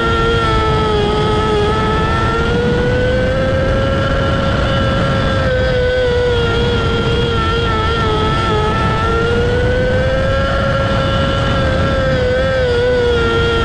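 A micro sprint car's 600cc motorcycle engine, heard on board, running at high revs. Its pitch dips and climbs again twice as the throttle eases off and opens back up.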